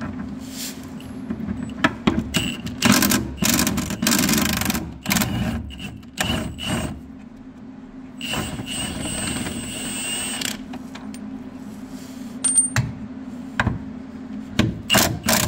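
Impact wrench running in several short bursts and one longer run about halfway through, hammering as it spins out the rear trailing arm bushing bolts on a Honda Integra's rear suspension. A few sharp knocks near the end as the socket is moved to the next bolt.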